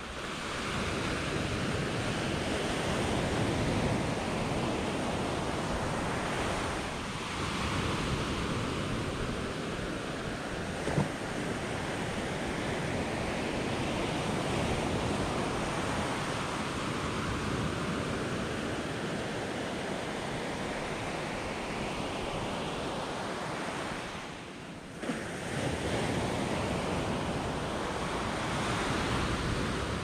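Low surf breaking and washing up a sandy beach, swelling and easing every few seconds. A short click about 11 seconds in, and a brief lull just before 25 seconds.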